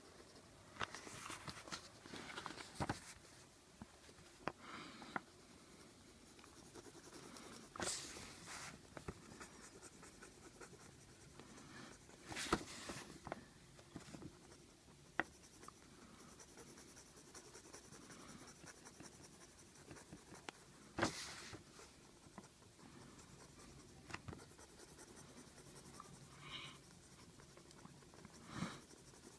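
Pencil scratching on paper while colouring in a drawing: faint, irregular strokes, with a few louder scrapes scattered through.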